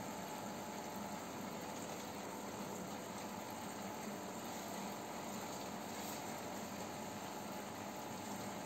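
Aquarium equipment running: a steady low hum under an even watery hiss.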